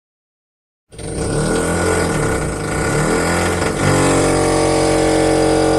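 Motorcycle engine cutting in abruptly after about a second of silence, its revs rising and falling repeatedly, then held at a steady higher rev from about four seconds in.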